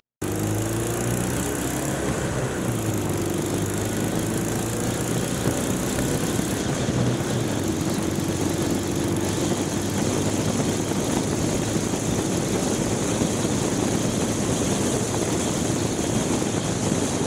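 2010 Ural sidecar motorcycle's air-cooled flat-twin engine running steadily while riding along, under heavy wind rushing over the bike-mounted microphone and road noise.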